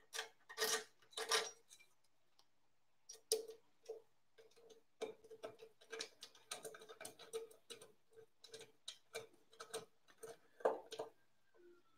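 Small hand tool driving a screw into the corner of an aluminium-extrusion 3D-printer frame: a faint run of light ticks and clicks, a few each second, starting about three seconds in.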